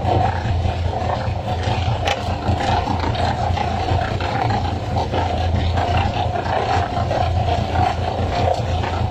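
Boat engine running steadily with a constant low drone. Occasional short knocks from hooked skipjack tuna landing on the wooden deck.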